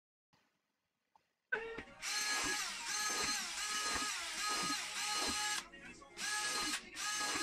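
Cordless drill with a 30 mm hole saw cutting holes through upholstery foam, run in reverse so the teeth don't chew up the foam. The motor whine starts about a second and a half in, its pitch dipping and recovering about every half second, stops briefly, then starts again for a second hole.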